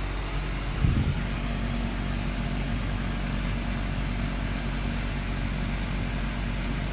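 Steady low mechanical drone with a constant hum, like a running motor, with one brief low thump about a second in.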